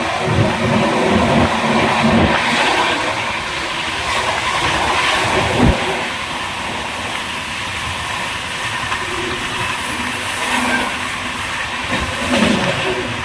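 Passenger train running on the rails, a steady rumble and rattle with one sharp knock a little before six seconds in.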